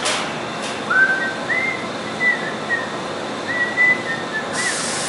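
A person whistling a short tune of several held notes that rise and fall, starting about a second in and ending near the end. A brief hiss sounds at the very start and another just before the whistling stops.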